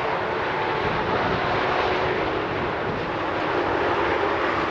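Steady drone of highway traffic, really loud, mixed with wind buffeting the microphone.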